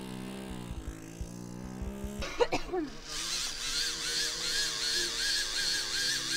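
Glow-fuel model airplane engine running. It runs low and even at first, then after a short sweep about two seconds in it is heard close up, higher and buzzier, its pitch wavering about five times a second.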